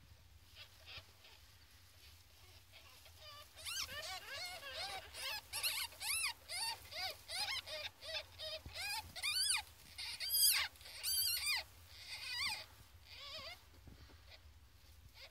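Two-week-old ferret kits squeaking: a quick run of short, high-pitched calls, each rising and falling, about two to three a second, starting about four seconds in and dying away shortly before the end.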